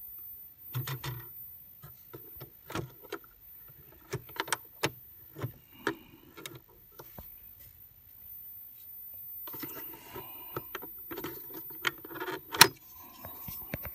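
Clicks and clunks of a Sony TC-102 reel-to-reel tape recorder's controls being worked by hand: the function lever and knobs snapping into place, with short rattles from the mechanism, as the freshly repaired tape transport is put through its modes. The sharpest clack comes near the end.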